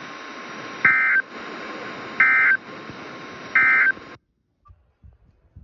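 Emergency Alert System end-of-message data tones: three short, loud bursts of warbling SAME digital tones about a second and a half apart over a steady radio hiss, marking the end of a weather warning. The feed cuts off abruptly after the third burst, leaving near silence with a few faint clicks.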